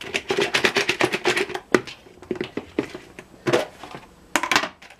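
Chicken pieces coated in melted butter being shaken in a covered plastic bowl: a rapid rattling clatter, heaviest in the first second and a half, then in a few shorter bouts.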